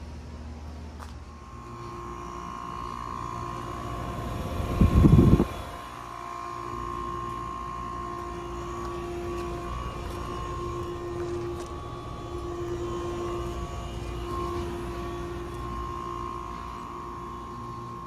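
Outdoor central air conditioner condensing units, a Bryant among them, running in cooling mode: a steady fan and compressor hum with a low tone and a higher tone held over it. About five seconds in, a loud low rumble lasts about a second.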